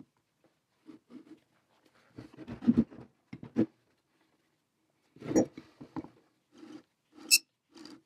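Hands handling the old electric motor's end bell, shaft and switch box: irregular scrapes, light knocks and clicks of metal parts being moved, with a louder knock about halfway and a sharp click near the end.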